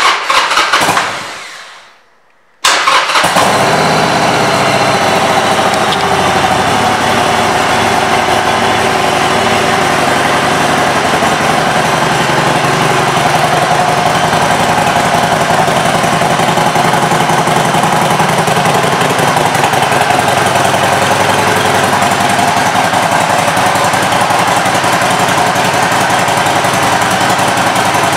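Harley-Davidson SuperLow 1200T's air-cooled 1200 cc V-twin started up: a first brief burst dies away, then after a moment it fires and runs steadily at idle.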